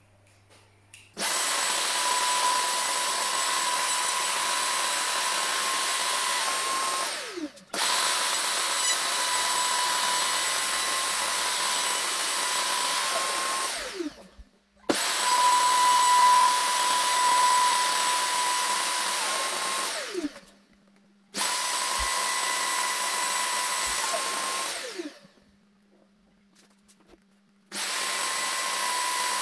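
Makita RTC0700C compact router running with a steady high whine while routing a recess in an OSB worktop. It starts about a second in and runs in stretches of several seconds. It is switched off four times and started again each time, and the motor spins down with a falling whine at each stop.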